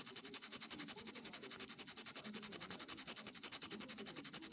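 A lump of solder rubbed rapidly back and forth on coarse sandpaper in quick, even strokes, about six or seven a second. The scraping grinds the solder into fine powder for homemade solder paste.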